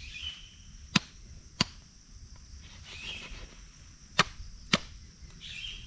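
Large knife chopping into a plucked chicken laid on leaves: four sharp chops, in two pairs about half a second apart, with about three seconds between the pairs.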